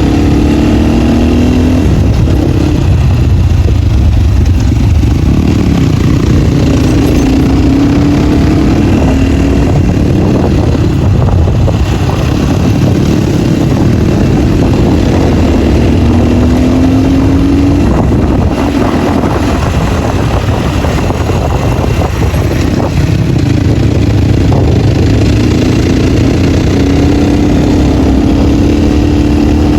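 Off-road motorcycle with its exhaust dB killer removed, running loud under way. The engine note rises again and again as the throttle is opened and drops back between pulls.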